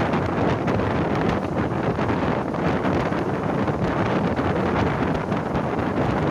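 Wind buffeting the microphone at the open door of a passenger train coach running at speed, over the steady rumble of the train on the rails.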